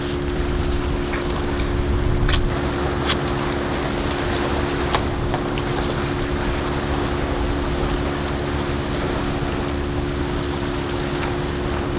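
Steady hum of a boat's engine running, with wind and water around the hull, and a few short light clicks in the first few seconds.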